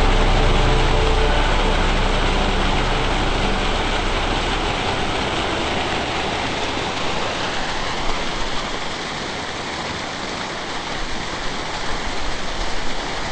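Water pouring over a small concrete spillway and rushing out of a snow-covered culvert: a steady rushing that slowly gets quieter, then grows a little louder near the end.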